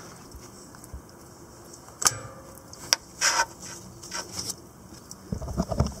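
A few sharp clicks and a short scrape spread over a few seconds, then a brief low rumble near the end.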